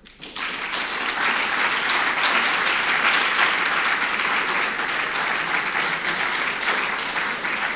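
Audience applauding, a dense steady clapping that starts almost at once.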